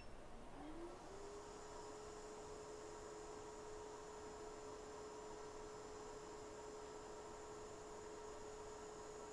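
Hot air rework station's blower spinning up for a solder reball: a faint whine that rises in pitch during the first second, then holds as a steady hum with a faint high hiss.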